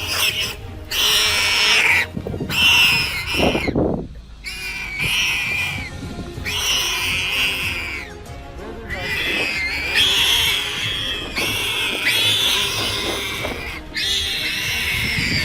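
Wild boar squealing over and over, about ten long shrill squeals each lasting about a second, the distress squeals of a boar caught by a predator.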